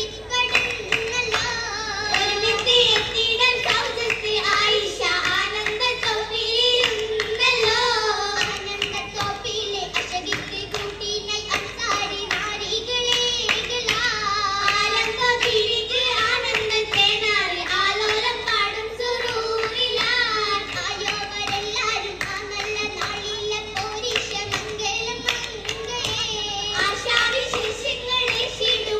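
Oppana performance: a group of girls sings a Mappila song in chorus, keeping rhythm with repeated hand claps.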